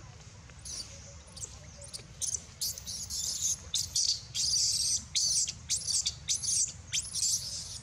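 Infant long-tailed macaque screaming in distress: a rapid series of short, high-pitched squeals that rise and fall, two to three a second, growing louder about two seconds in.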